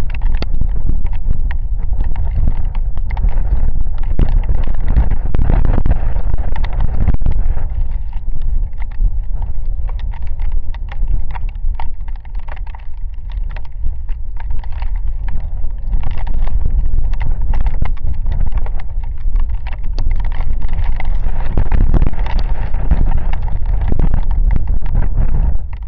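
Heavy rain storm with gusting wind: raindrops ticking densely on the camera over a loud low rumble of wind buffeting the microphone, easing a little about halfway through.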